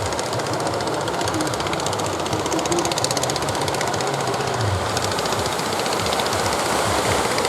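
Boat engine running with a fast, even knock, over a steady rushing noise.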